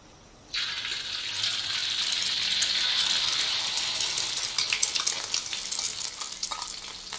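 Beaten egg batter thickened with corn flour poured into hot oil in a wok, breaking into a sudden loud sizzle about half a second in. After a few seconds the hiss eases into crackling and spitting as the egg fries crisp.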